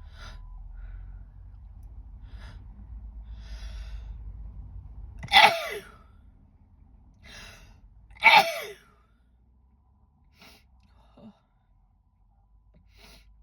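A woman sneezes twice, about three seconds apart, after gasping in-breaths as the sneezes build. Quieter breaths follow.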